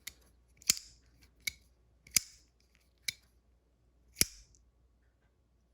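Boker Kalashnikov automatic knives firing: three loud, sharp snaps as the spring-driven blades lock open, with softer clicks between them as blades are handled or folded shut.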